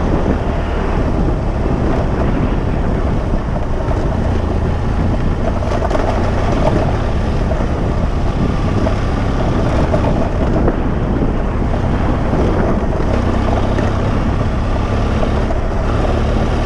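A vehicle driving along a dirt track: steady engine noise with wind buffeting the microphone.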